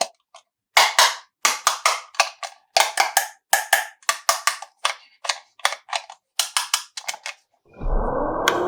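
Hard plastic toy pieces clicking and clacking as they are handled, a run of sharp separate clicks about two or three a second. Near the end a steady hum starts, with a tone that rises and then holds.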